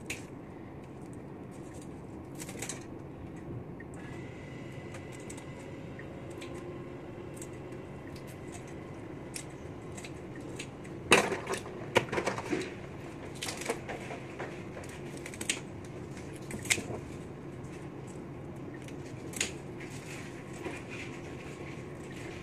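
Kitchen scissors snipping through mantis shrimp shells as the legs and sharp edges are trimmed off: irregular sharp clicks and crunches, loudest in a cluster about halfway through.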